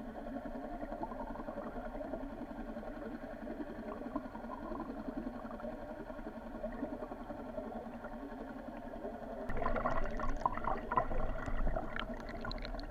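Water rushing past an underwater camera as a trolled lure is pulled along, with a steady low motor drone carried through the water. About nine and a half seconds in the water noise turns louder, with irregular clicking and rattling.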